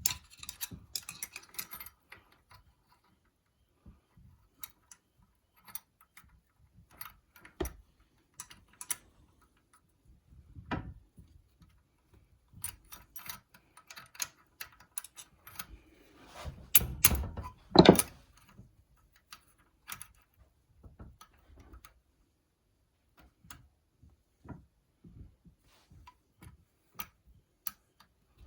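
Small metal engine parts clicking, tapping and clinking as they are handled and fitted into the engine case, with a heavier knock a little before 18 seconds in.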